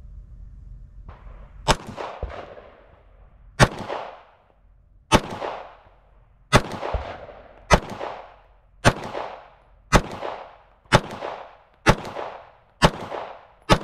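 Shadow Systems CR920P 9mm pistol firing about eleven single aimed shots, each with a short echo. The first few come about two seconds apart, then they quicken to about one a second.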